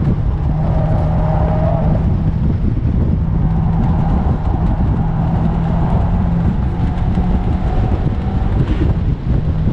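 Mazda MX-5 NC's swapped-in 2.5-litre engine pulling at steady, high revs on track. It is heard from inside the open-topped cabin over heavy wind rush.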